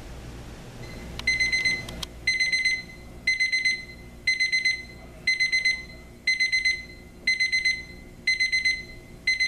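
RCA RCD215 alarm clock's alarm beeping: a high electronic beep in quick groups of about four pulses, repeating about once a second, starting a little over a second in.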